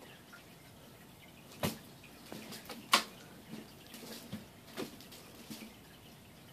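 Scattered light taps and clicks of a kitten batting and pouncing on a toy on a string, with two sharper clicks about one and a half and three seconds in.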